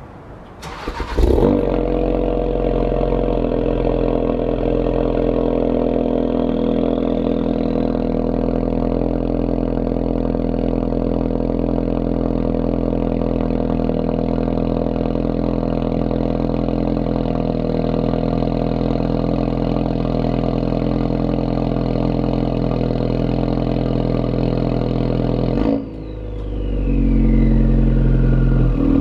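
Ford Focus RS Mk3's turbocharged 2.3-litre four-cylinder engine with a Scorpion cat-back exhaust on a cold start: it cranks and catches with a flare about a second in, then settles into a steady fast cold idle. Near the end the sound dips briefly and comes back deeper and louder.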